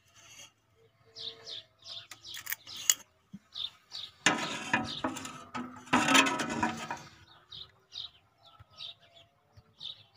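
Small birds chirping, short high calls repeated again and again. A louder, harsher stretch of noise comes in about four seconds in and lasts roughly three seconds.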